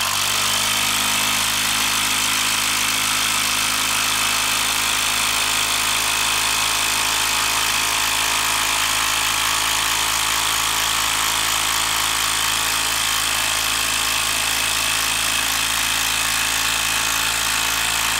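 Hilti 12-volt brushed quarter-inch hex impact driver hammering continuously under load as it drives a long TimberLOK screw into a log, at an even, unbroken level throughout.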